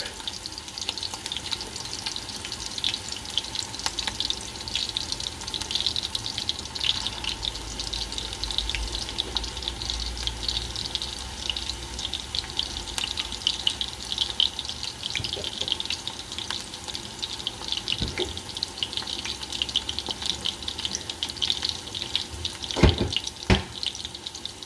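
Chicken mince patties sizzling steadily in hot vegetable oil in a fry pan, a dense spitting crackle. A few sharp knocks near the end.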